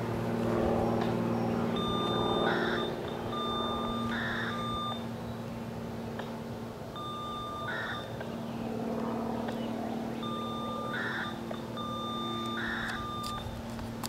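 Intermittent electronic beeping, in on-and-off stretches of about a second, over a steady low mechanical hum.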